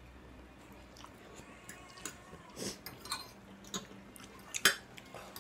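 Two people eating noodles: slurping and chewing, with forks clicking against a bowl and a plate in scattered short sounds, the sharpest click near the end.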